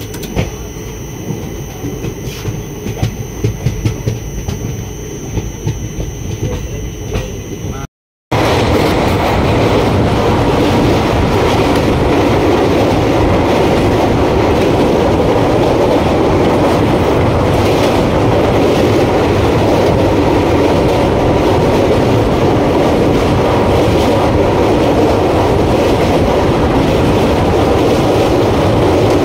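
Passenger train rolling slowly out of a station, a low rumble with a few sharp knocks, heard from an open coach doorway. After a brief break about eight seconds in, a much louder, steady rumble and clatter of the train running over a steel girder bridge across a river.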